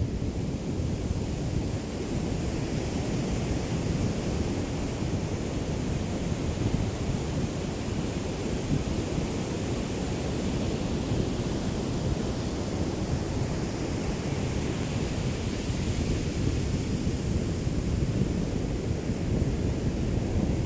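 Small waves of a calm sea lapping on the shore in a steady wash, with a low wind rumble on the microphone from a light breeze.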